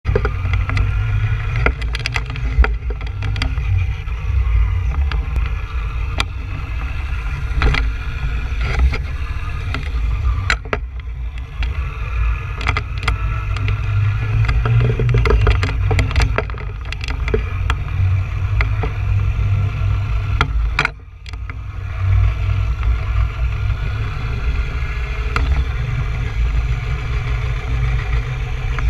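Onboard sound of a Traxxas Stampede 2WD RC monster truck driving on pavement: heavy wind buffeting on the mounted GoPro's microphone over a faint electric-motor whine that rises and falls with speed, with tyre noise and scattered clicks. The noise dips briefly about three quarters of the way through.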